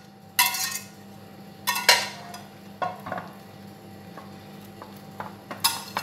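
Metal whisk scraping white sauce out of a saucepan, then a fork spreading it over fries in a glass baking dish: several short scrapes and clinks of metal against the pan and the glass. A faint, steady low hum runs underneath.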